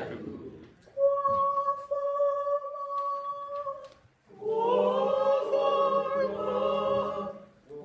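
Singing voices: one long, steady high note held for about three seconds, then after a short break a fuller sung passage of about three seconds, like a small choir.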